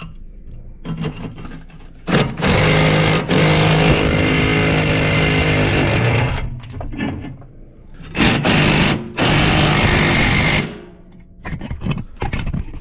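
Power impact wrench running in two bursts of a few seconds each, backing out the bolts that hold a truck's step rail, the first with a brief break near its start.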